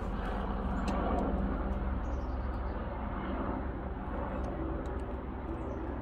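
A steady low rumble, with a few light clicks as a small screwdriver and fingers work the door-lock rod clip.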